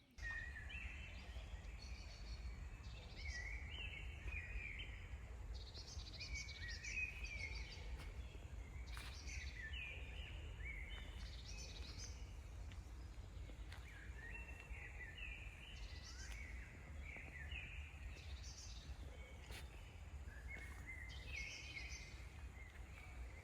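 A songbird singing short phrases of rising and falling notes, repeated every two to three seconds, over a steady low rumble.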